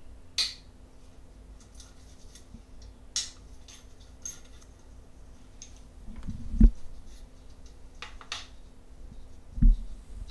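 Socket wrench and extension at work on the fuel rail bolts of an intake manifold: a few scattered sharp metal clicks and clinks, with two dull knocks, the louder about six and a half seconds in.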